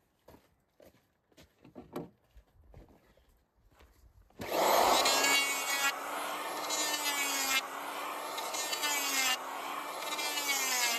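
Electric hand planer starting up about four seconds in and cutting a bevel along the edge of a wooden oar blank, a loud steady motor whine with the rasp of the cutter shaving wood; its pitch and level dip slightly a few times as the cut loads it. Before it starts there are only a few faint handling clicks.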